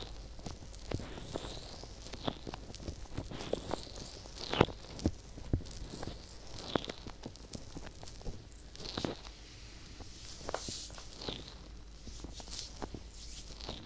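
Fingertips rubbing, pressing and kneading the silicone ears of a binaural microphone close up: soft scratchy rubbing with many small crackles and clicks, and a few louder pops about four and five seconds in.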